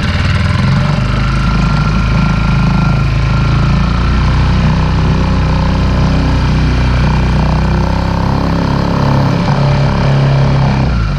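Outboard motor running steadily with the boat under way, along with water rushing and spraying against the inflatable pontoon and transducer bracket.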